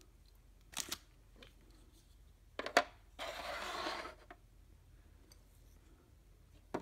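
Small plastic toy-house chairs and figures handled and set down: a sharp click about a second in and another near three seconds, then a scraping slide of about a second as a piece is pushed into place, with a last click near the end.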